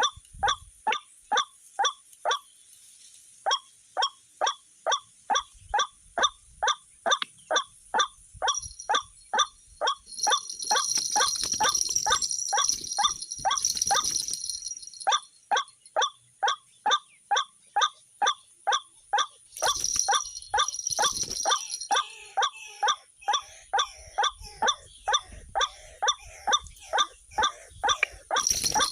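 White-breasted waterhen (ruak-ruak) calls repeated in a steady rhythm, about two to three a second, with a short break about two seconds in. A high hissing sound joins in twice, midway and about twenty seconds in.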